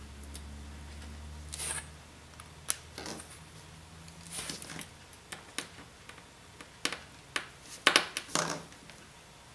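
Small screwdriver and tiny screws being worked out of an iPad 2's volume and mute bracket: scattered light clicks and short scrapes of metal tools on the tablet's parts, with a cluster of louder clicks near the end.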